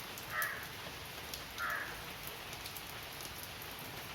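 Steady rain falling, with scattered drip ticks, and two brief faint sounds about half a second and a second and a half in.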